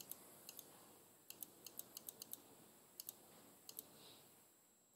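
Faint, sharp clicks of laptop keys pressed again and again in quick bursts, many in pairs, as presentation slides are skipped ahead one after another.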